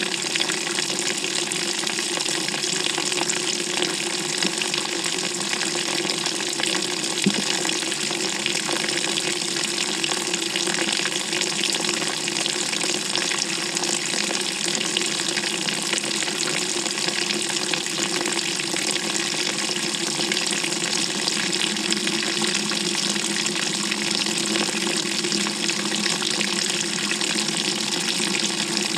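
Water streaming steadily into the drum of a GE top-loading washing machine as it fills, heard from inside the drum. The rushing hiss is even, with no beat.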